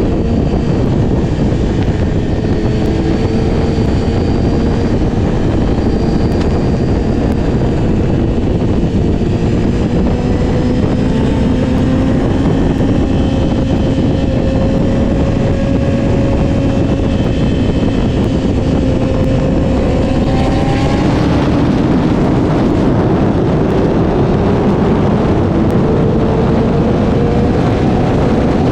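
Sport motorcycle engine running at speed under steady wind rush on the microphone. The engine note climbs slowly, then shifts about twenty seconds in, with more hiss on top after that.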